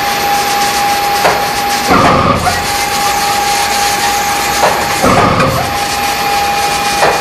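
Konica Minolta Nassenger VII digital textile printer at work: the printhead carriage travels across the silk with a steady high whine over a constant machine hiss. Twice the whine breaks off with a short louder sound, about every three seconds, as the carriage reaches the end of its pass and reverses.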